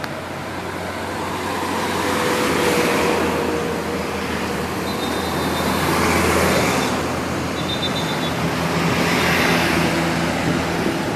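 Road traffic: vehicles passing close by, the tyre and engine noise swelling and fading three times, a few seconds apart.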